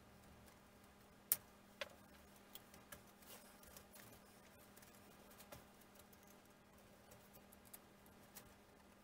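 Light clicks and taps of thin wooden wing ribs and spars of a model-plane kit being pushed into place by hand, with two sharper clicks about a second and a half in. A faint steady hum runs underneath.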